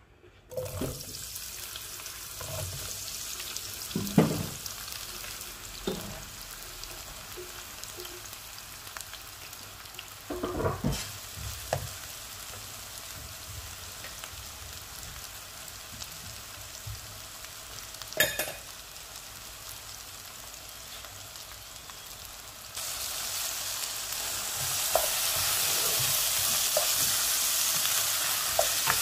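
Eggplant cubes sizzling as they fry in hot oil in a non-stick pan, stirred with a spatula, with a few knocks against the pan. The sizzle grows louder near the end.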